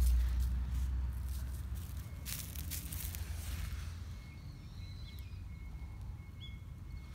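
Crackly rustling and brushing of a cat's fur rubbing against the phone's microphone, with a low rumble of handling at the start and a longer burst of rustling in the middle. A few faint, short high chirps follow.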